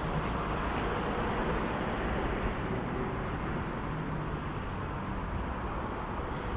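Steady city background noise of distant traffic: an even, low rumble with no distinct events.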